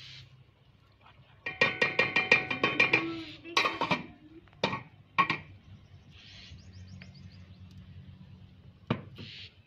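Aluminium cooking pot and its metal lid clattering: a quick run of ringing metallic rattles, then a few single sharp knocks as the lid is set on the pot.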